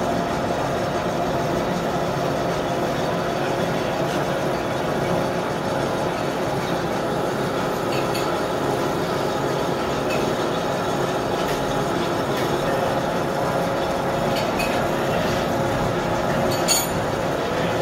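A gear hobbing machine running steadily as its hob cuts teeth into a green plastic helical gear blank: an even mechanical drone carrying several steady humming tones. There is a brief sharp click near the end.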